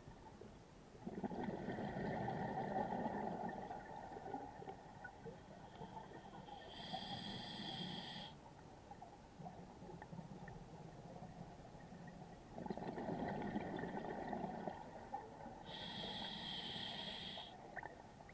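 Scuba diver breathing underwater through a regulator: two slow breaths, each a long drawn inhale followed by a shorter hissing burst of exhaled bubbles.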